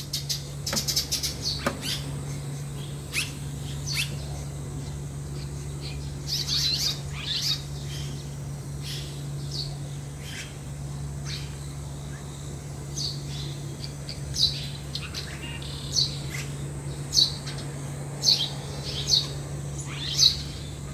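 Red-rumped swallows chirping at their mud nest: short, high chirps, crowded together in the first few seconds, then single sharp chirps about once a second toward the end.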